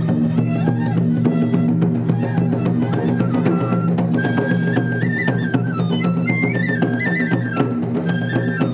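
Traditional shishimai lion-dance music: a taiko drum struck in a quick, steady rhythm, with a high bamboo flute (fue) melody that is strongest from about halfway through.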